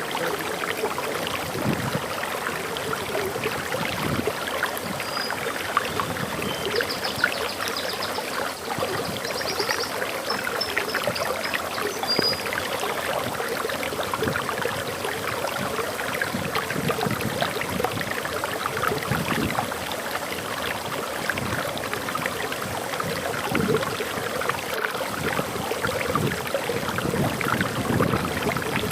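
Waterfall splashing steadily, with a bird's short high chirps and trills about five to twelve seconds in.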